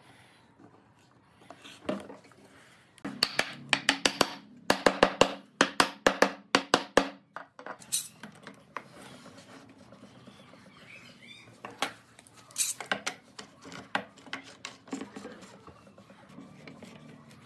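Sharp wooden knocks in a quick run of about four a second, then a few scattered knocks and clicks, as glued pine frame joints are tapped together and bar clamps are set on the frame.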